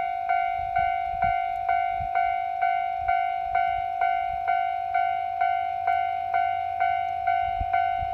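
Japanese railway level-crossing warning bell ringing steadily, a bright electronic bell struck a little over twice a second.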